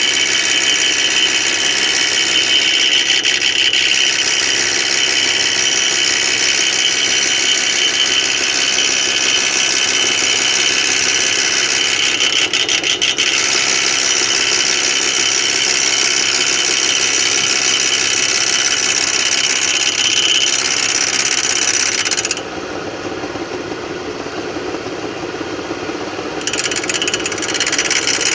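Homemade lathe running steadily with its four-jaw chuck, a continuous hissing mechanical whir. About three quarters of the way through it goes quieter and duller for about four seconds, then comes back.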